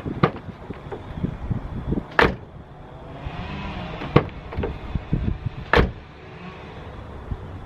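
Rear door of a 2002 Subaru WRX sedan opened and shut twice, with a click as the handle is pulled and a louder slam about two seconds later each time.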